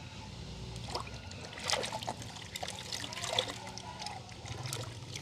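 Water trickling and splashing in small irregular bursts, with light clicks, busiest in the middle.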